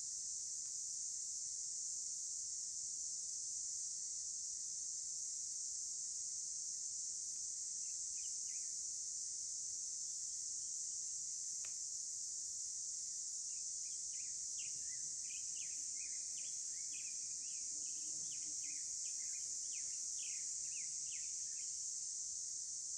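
Steady high-pitched insect chorus. In the second half a bird chirps rapidly over it, and there is a single click near the middle.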